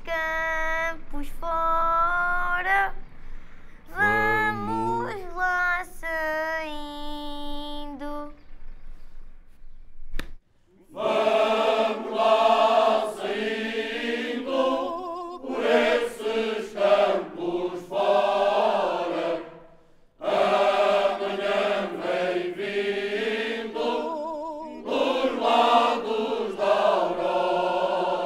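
A lone voice singing an unaccompanied line of held notes for about eight seconds. After a short break about ten seconds in, a large mixed Cante Alentejano choir of men and women comes in, singing a cappella polyphony in long held chords.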